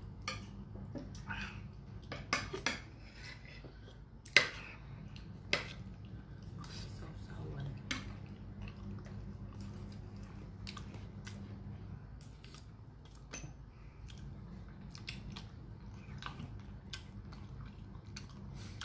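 Metal spoon clinking and scraping against a dish in scattered light knocks, with two sharper clinks about four and a half and five and a half seconds in.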